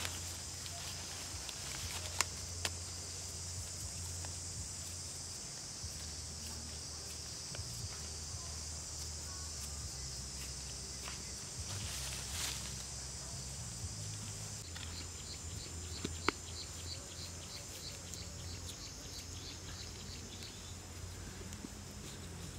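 Steady high-pitched insect drone. About fifteen seconds in, a rhythmic insect chirp of roughly four pulses a second joins it for several seconds. A few faint clicks and pats come from hands working wet clay.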